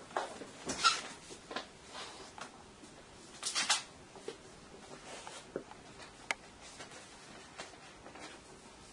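Faint, scattered swishes of a Chinese calligraphy brush being drawn across paper as characters are written, with the loudest stroke about three and a half seconds in. A single sharp tick comes about six seconds in.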